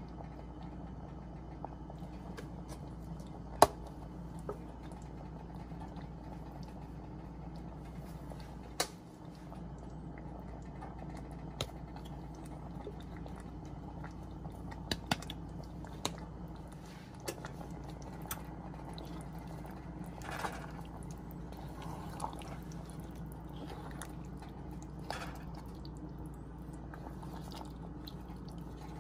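Okra and tomato stew in an enameled cast-iron pot, wet and bubbling, over a steady low hum, with scattered sharp clicks and taps from spice jars and a wooden spoon against the pot; the loudest click comes about three and a half seconds in.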